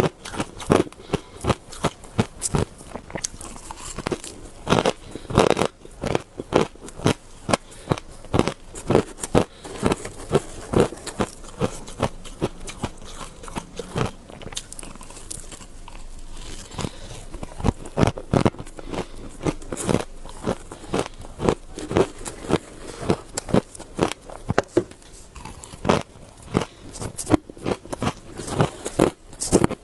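Close-up biting and chewing of powdery shaved ice: quick, crisp crunches at about two to three a second, easing into a softer stretch around the middle before picking up again.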